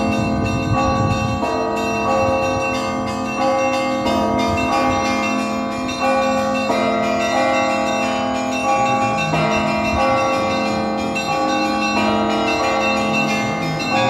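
Bells of St Isaac's Cathedral's belfry ringing: several bells of different pitch struck one after another in an uneven rhythm, each new strike about every second, their tones overlapping and ringing on.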